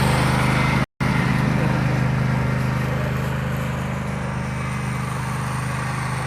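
Riding lawn mower engine running steadily, with a brief dropout in the audio about a second in.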